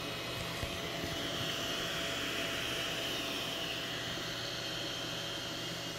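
Elegoo Neptune 4 Pro 3D printer running while it prints a first layer: a steady whoosh of its cooling fans, with a faint high whine that swells a little in the middle.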